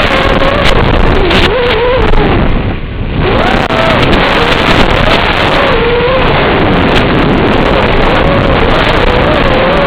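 QAV-R220 racing quadcopter's brushless motors whining, the pitch rising and falling constantly with the throttle, under heavy wind noise on the microphone. The sound drops briefly about three seconds in.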